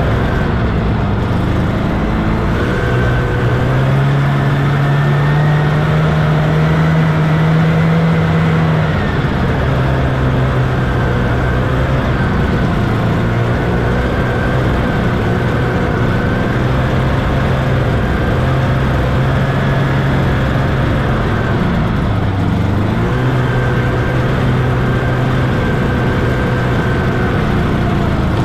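1979 Scorpion Whip TKX 440 snowmobile's Cuyuna two-stroke twin running under way. Its pitch rises about three seconds in, holds higher for several seconds, then drops back and stays fairly steady with small changes of throttle.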